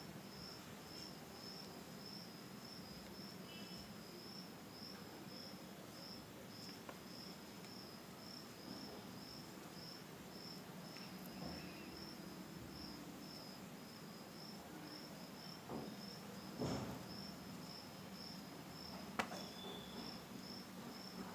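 Faint insect chirping: high, even pulses repeating steadily, with a couple of soft knocks near the end.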